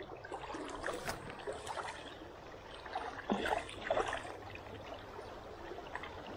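Shallow river current running and gurgling over a riffle, with scattered splashes.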